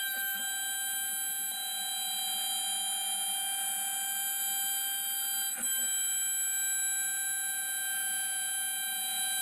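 CNC router spindle running while machining wooden bottle openers: a steady, high-pitched whine made of several tones, with a short click about five and a half seconds in.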